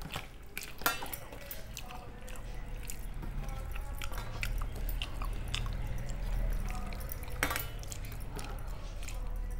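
Soft, wet rice being mixed by hand on a steel plate: squishing, with scattered clicks of fingers and rings on the metal and two sharper clicks, one about a second in and one near the end. A low steady hum runs underneath.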